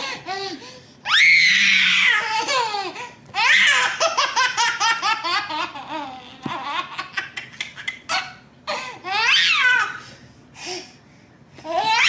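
A baby laughing in several bouts of high-pitched, pulsing laughter.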